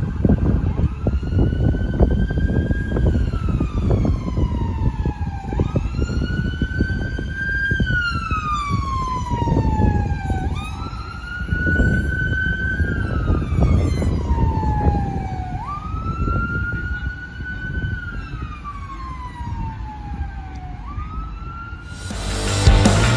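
Fire engine siren on a slow wail, rising and falling about every five seconds over the rumble of traffic. Near the end it cuts to loud rock music.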